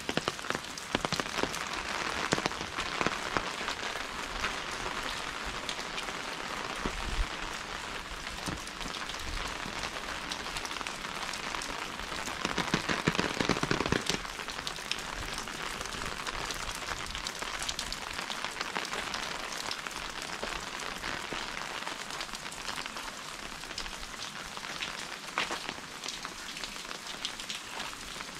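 Steady rain falling, a dense patter of many small drops striking surfaces, louder for a couple of seconds about halfway through.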